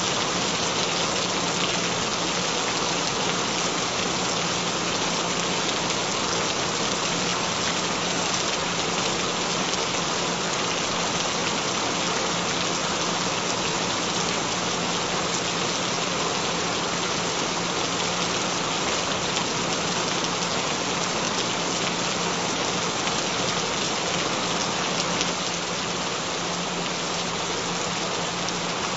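Steady rainfall, an even unbroken hiss of rain with no thunder, plus a faint steady low tone underneath.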